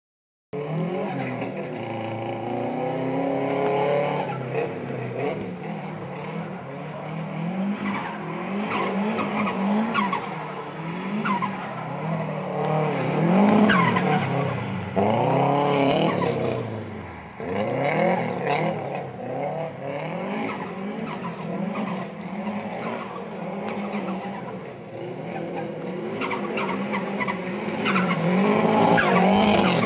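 Subaru WRX STI's turbocharged flat-four engine revving up and down over and over as the car is drifted on a wet track, with the tyres skidding. About halfway through the revs fall away sharply and then climb again.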